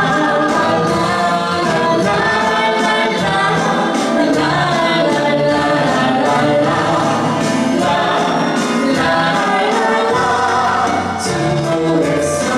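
Ensemble of musical-theatre singers singing together in choir-like harmony over music.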